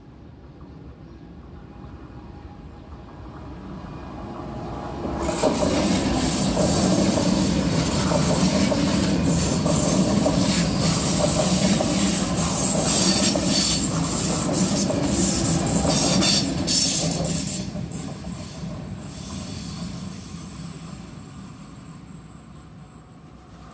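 A ČD class 680 Pendolino electric train passes a level crossing. Its rumble builds for about five seconds, turns suddenly loud with wheel and rush noise as it reaches the crossing, holds for about twelve seconds, then fades away. The crossing's warning bell rings steadily underneath.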